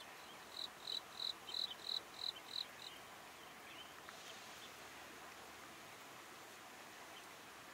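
A series of about eight short, high chirps, about three a second, swelling and then fading over a couple of seconds, from a small animal such as a chirping insect, over faint outdoor background hiss.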